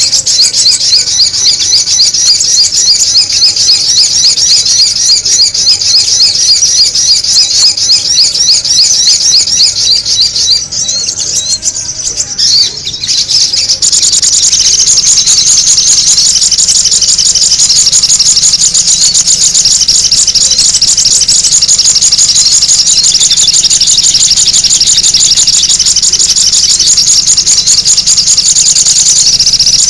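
Sogon bird lure call: loud, rapid, unbroken high-pitched chirping. It dips briefly about ten seconds in, then turns denser and more even from about fourteen seconds on.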